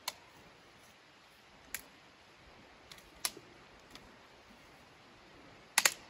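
Thin dry sticks snapped by hand, sharp single cracks every second or two, then a quick run of several louder snaps near the end.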